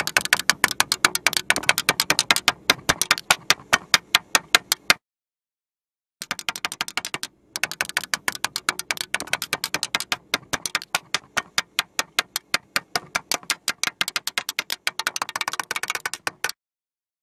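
Rapid, irregular sharp clicks at several a second, in two long runs that break off about five seconds in, resume after a second or so and stop suddenly near the end.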